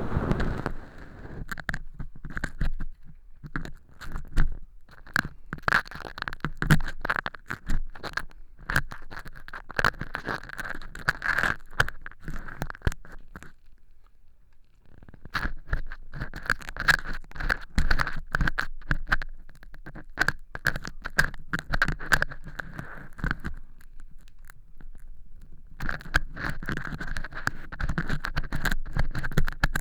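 Earpick scraping and crunching through dry fake earwax made of cork chips in an ear model: rapid crackly scratching in long runs, stopping briefly twice.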